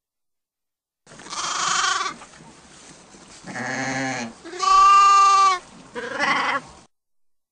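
Sheep bleating: four separate bleats after a second of silence. The third, about five seconds in, is the loudest and clearest, a steady-pitched baa.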